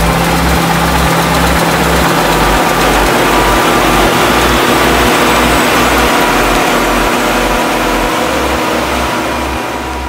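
John Deere W550 combine harvester running while harvesting, a loud, steady mix of engine and threshing machinery noise. Under it runs a steady low beat from background music.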